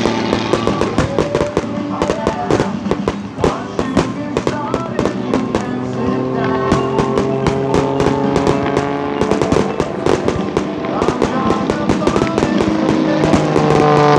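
Fireworks bursting and crackling in a rapid, dense string of bangs, over music with long held notes.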